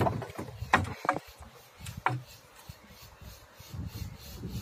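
Sharp knocks on the wooden hull of a small river boat, four of them in the first two seconds, over a low rumble.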